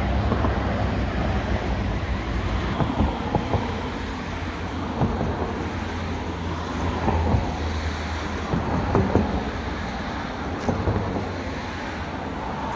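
Wind buffeting the microphone over the low rumble of a car driving along the road, the rumble easing off about two-thirds of the way through, with scattered small knocks.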